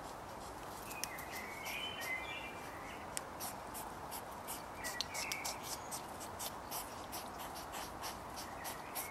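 A fast run of small clicks and scratches, a hedgehog mouthing and chewing at a rubber tyre, over a steady hiss. Short chirps come about a second in and again around five seconds.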